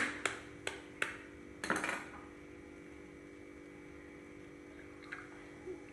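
A raw egg being cracked open: four sharp taps on the shell in the first second, then a short crackle about two seconds in as the shell breaks. A faint steady hum runs underneath.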